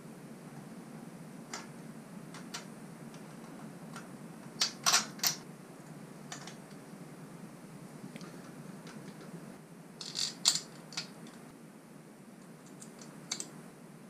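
Small metal parts clicking and clinking as a torque arm, washer and nut are handled and fitted onto a hub motor's axle. Scattered light clicks, with two short clusters of sharper clinks about five and ten seconds in, over a steady low hum.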